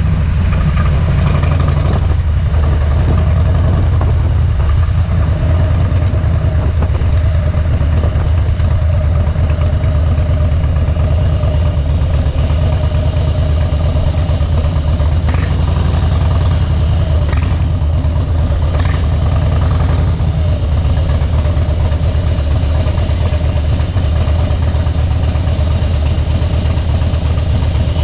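2013 Harley-Davidson Softail Deluxe's V-twin engine running steadily through Vance & Hines Straight Shots slip-on mufflers, a deep, even exhaust note. A few short clicks come through a little past the middle.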